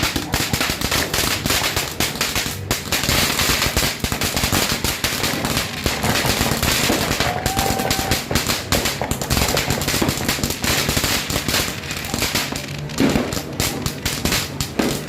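Firecrackers and fireworks going off in a dense, unbroken barrage of rapid pops and crackles.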